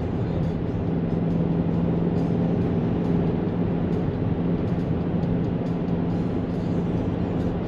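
Steady road noise and engine drone inside the cabin of a 2004 Volkswagen Jetta TDI wagon under way, its 1.9-litre four-cylinder turbodiesel holding one even hum.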